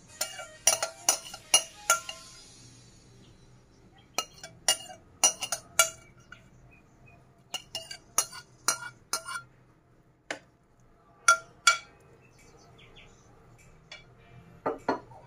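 A spoon clinking sharply against a dish in several short runs of taps, each with a brief ringing tail, as the last of the sauce is scraped out.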